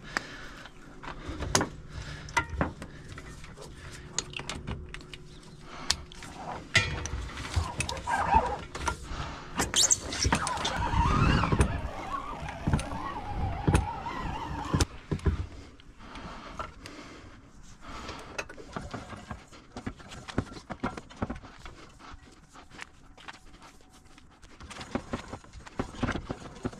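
Hoses being wound by hand onto hose reels: rubbing, rattling and knocking of hose against reel and truck bed, in scattered sharp clicks with a busier, louder stretch in the middle.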